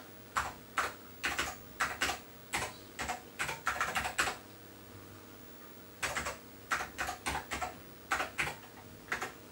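Typing on an Apple II keyboard, entering a web address: a quick run of key clicks, a pause of almost two seconds, then a second run of clicks.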